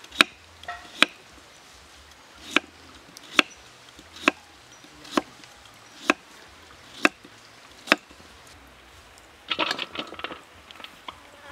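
Kitchen knife chopping carrot on a thick wooden chopping board, one sharp chop about every second, nine in all. Near the end a quick flurry of short cuts as carrot is sliced into strips on a metal plate.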